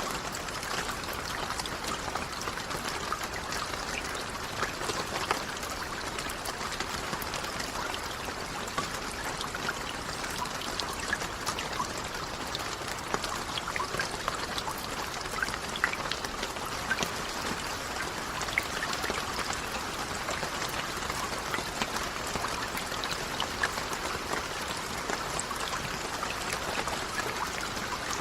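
Steady rain falling, an even wash of water noise with many small, distinct drop ticks throughout.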